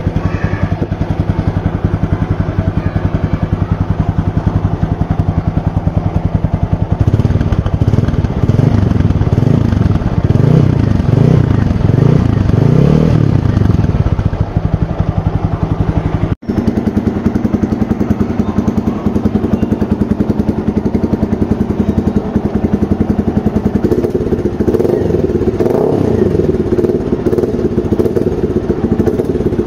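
TVS Apache RTR 200 4V single-cylinder motorcycle engine running through its stock exhaust, revved several times in the middle with the pitch rising and falling. After a sudden cut it idles through an aftermarket Roar full-system exhaust, the note growing stronger near the end.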